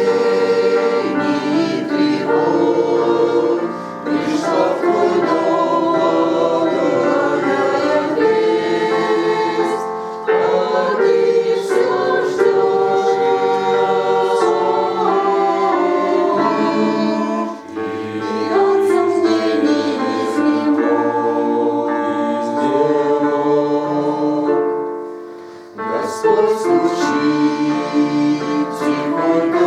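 A choir singing a Christian hymn in sustained phrases, with short breaths between phrases and a pause about 25 seconds in before the next line begins.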